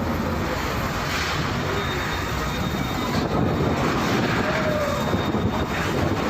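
A heavy engine running steadily, a dense rumbling noise that gets slightly louder about three seconds in.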